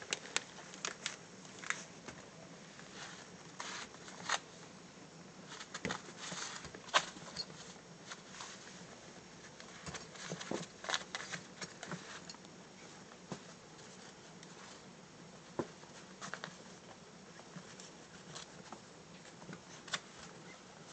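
Maltipoo puppy chewing and pawing at a Garmin GPS unit on carpet: faint, irregular clicks, scratches and rustles, with a few sharper clicks scattered through.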